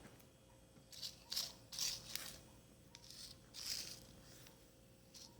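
Hands handling a weighing scale during a battery change: about six short, faint scrapes and rustles, bunched in the first couple of seconds, then one near the middle and one near the end.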